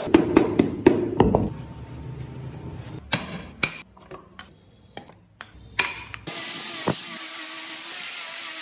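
Woodworking tool sounds: a quick run of sharp knocks on wood, then scattered clicks and taps, then, about six seconds in, a power tool starts with a steady hissing whirr.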